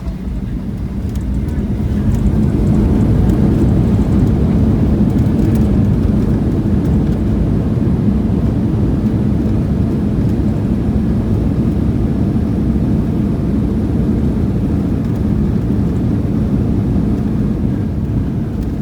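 Passenger airliner noise heard inside the cabin: a loud, steady low rumble that swells about two seconds in and holds.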